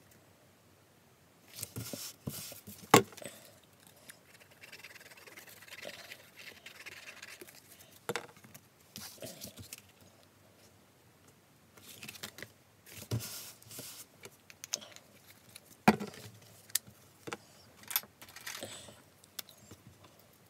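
Stiff card stock handled, rubbed and slid on a cutting mat, with a scattering of sharp knocks and taps as the card and glue bottles are set down. The loudest knocks come about three seconds in and again about sixteen seconds in.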